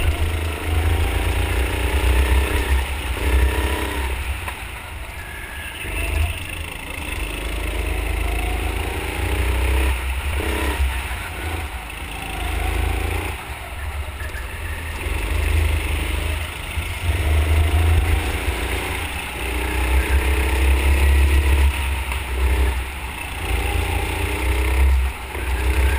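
Go-kart engine heard on board the kart, revving up in pitch and dropping off again every few seconds as it accelerates out of corners and lifts for the next, over a steady low rumble.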